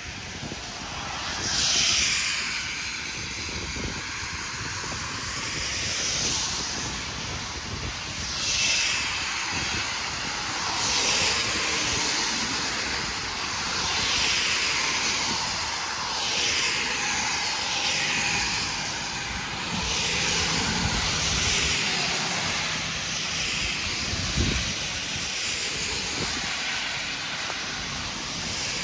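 Road traffic: cars going by one after another, each pass a swell of tyre hiss over a steady low rumble.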